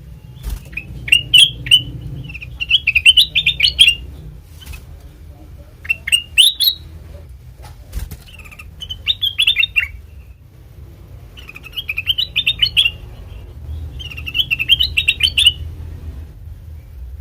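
Ruby-throated bulbul (kutilang emas) singing: about six short phrases of rapid chirpy notes, each a second or two long, coming every two to three seconds. A steady low hum runs underneath.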